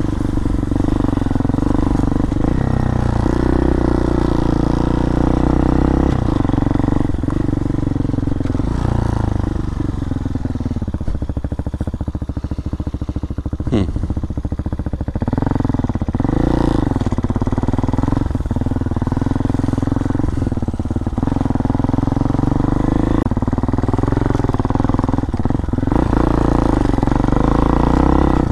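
Hawk DLX dirt bike's single-cylinder engine running as it is ridden along a trail, the revs rising and falling with the throttle and easing off around the middle. One sharp click about halfway through.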